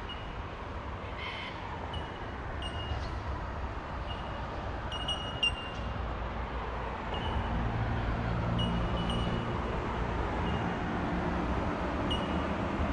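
Road traffic rumble with a vehicle engine hum swelling about halfway through, while short high bird chirps repeat every second or so.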